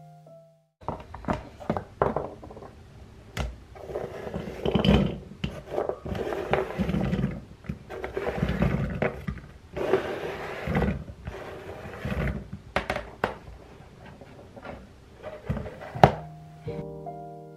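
Chef's knife chopping carrots on a plastic cutting board in a run of irregular crisp knocks, with rough scraping and rustling as the carrot slices are gathered by hand across the board and moved into a ceramic bowl; a sharp knock near the end.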